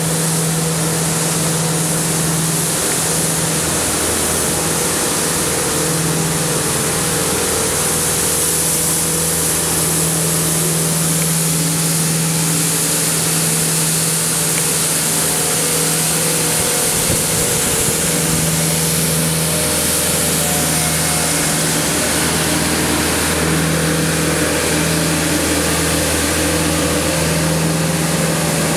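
Elgin Pelican street sweeper running steadily, its diesel engine humming at a constant pitch under a steady high hiss.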